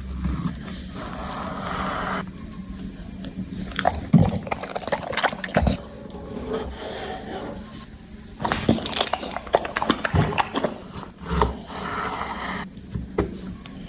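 A dog eating, with irregular short clicks and smacks from its chewing.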